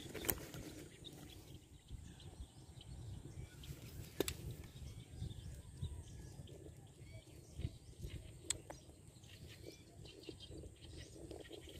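Low wind rumble on the microphone, broken by three sharp clicks about four seconds apart.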